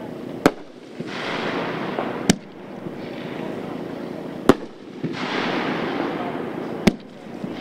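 A 3-inch consumer finale cake firing (Shogun's Jellyfish Jamboree). Four sharp bangs come about two seconds apart, with a hiss from the burning effects between them.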